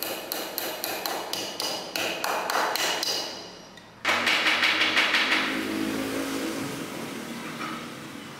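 Hammer blows on a chisel cutting into a wooden block, about three sharp strikes a second, fading out a little past three seconds. About four seconds in, a different stretch of fast, even clicking with a mechanical hum starts abruptly.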